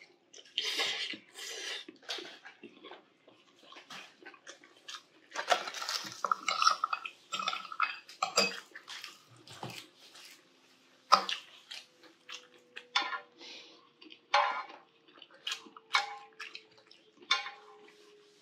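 A person eating: slurping and chewing sounds, with metal chopsticks and a spoon clicking against bowls and a pan at irregular intervals, one sharp click about eleven seconds in.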